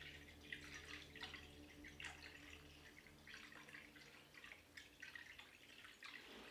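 Faint drips and trickles of liquid, cleaning solution in a water-cooling pump reservoir, over a low steady hum.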